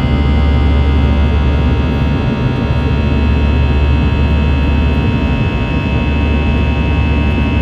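Airbus A321-211's CFM56 jet engines climbing out after takeoff, heard inside the cabin from a window seat: a loud, steady low rumble with a high whine of several fan tones over it.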